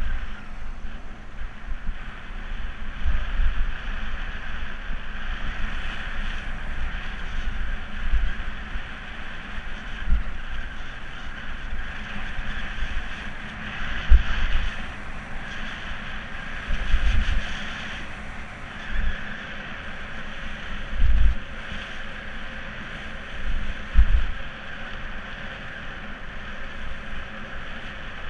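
Wind rushing over the microphone of a camera on a moving bicycle: a steady hiss, with low buffeting gusts every few seconds.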